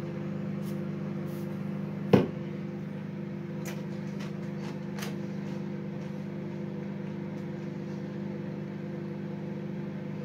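Microwave oven running with a steady hum. There is one sharp knock about two seconds in, and a few faint clicks after it.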